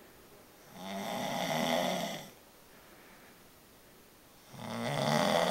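A sleeping man snoring: two long snores on the in-breath, each about a second and a half, about four seconds apart, with quiet breathing in the gap between them.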